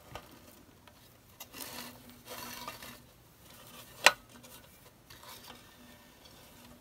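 Steel cover of a small electronics box being lifted off and handled: faint scraping and rustling of metal and wires, with one sharp metallic tap about four seconds in.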